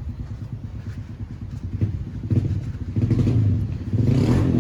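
A motor vehicle engine running in the background as a steady low rumble, louder in the last second and a half, with a few light knocks about two seconds in.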